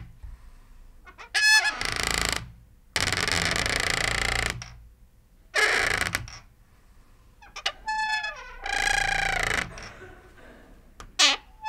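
Squeaky door hinge creaking through a series of slow swings, about six creaks in all. Some are high pitched squeals that slide down in pitch, others a rough grinding creak, the longest lasting nearly two seconds.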